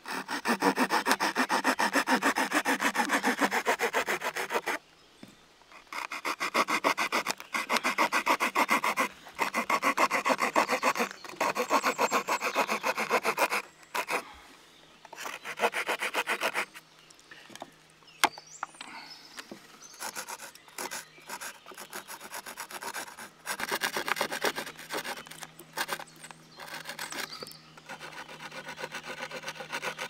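Victorinox Huntsman's small folding wood saw cutting across a thin split-wood slat in quick back-and-forth strokes. The strokes come in bouts with short pauses and are quieter in the second half.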